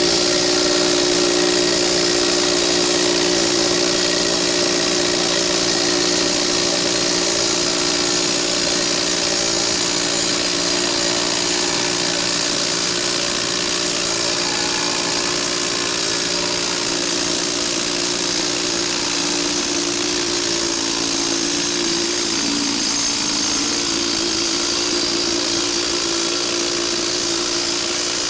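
Cordless impact driver running steadily under load, hammering a nut down a greased threaded rod to draw a tire-block installation halo tool into an ATV tire.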